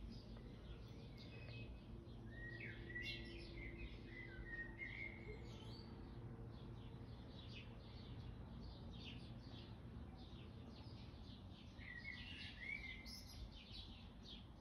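Faint birdsong: birds chirping many times with short whistled phrases, over a steady low hum.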